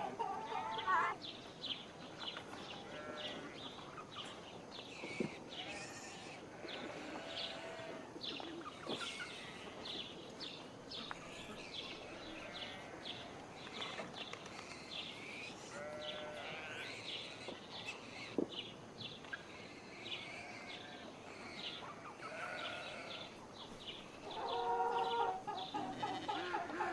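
Farmyard ambience: livestock bleating now and then, loudest near the end, over many small birds chirping throughout.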